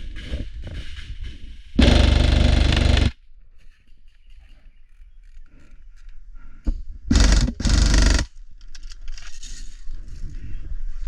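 Airsoft guns firing on full auto. One burst lasts about a second and a half, starting about two seconds in. Two shorter bursts follow back to back about seven seconds in, with rustling and crunching movement in between.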